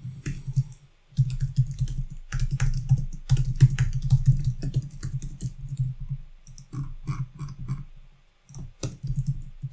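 Typing on a computer keyboard: a rapid, uneven run of keystroke clicks, with short pauses about a second in and near the end.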